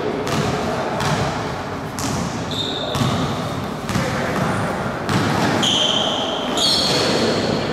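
Basketball game sounds in a gymnasium: a ball being dribbled on the court floor with repeated knocks, sneakers squeaking on the court a few times, most near the end, and players calling out.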